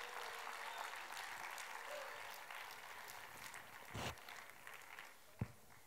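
Congregation applauding, fading away over the first few seconds, with a few scattered voices. Two dull low thumps follow, about four and five and a half seconds in.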